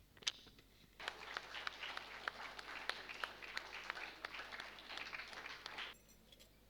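A single sharp click, then an audience applauding for about five seconds, starting about a second in and stopping abruptly.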